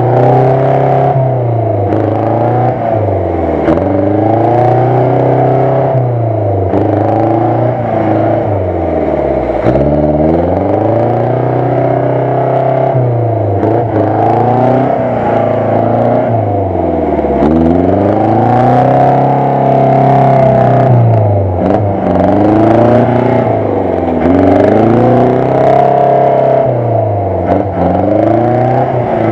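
An off-road vehicle's engine being revved hard over and over, its pitch climbing and dropping back about every two to three seconds, as the vehicle forces its way through deep mud.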